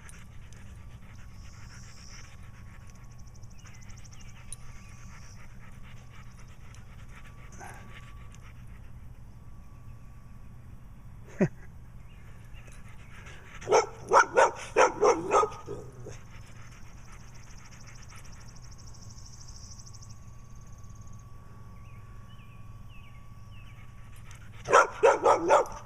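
A dog barking: a single sharp bark about eleven seconds in, a rapid run of about six barks a couple of seconds later, and another quick run of about five barks near the end.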